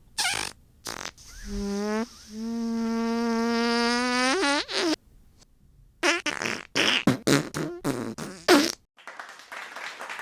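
A string of fart sound effects. First come two short blasts, then a long drawn-out pitched fart of about three seconds that rises in pitch at its end. A rapid run of short sputtering farts follows. Near the end, an even hiss like applause begins.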